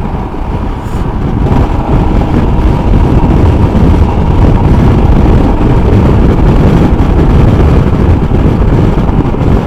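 Motorcycle riding at road speed: steady wind and road noise with the engine's hum underneath. It grows louder over the first two or three seconds and then holds steady.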